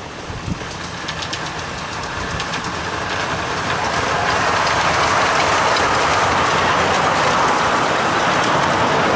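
Miniature steam train passing close by: the locomotive and its passenger carriages running along the track. The sound grows steadily louder over the first four or five seconds as the train approaches, then stays at a steady level as the carriages go past.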